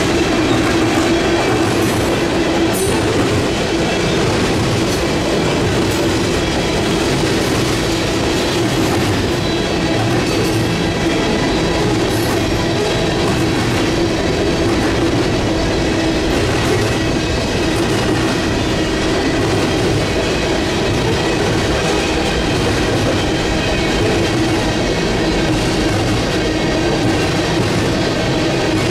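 Cars of a manifest freight train (tank cars and covered hoppers) rolling past steadily, steel wheels running on the rails with a steady hum.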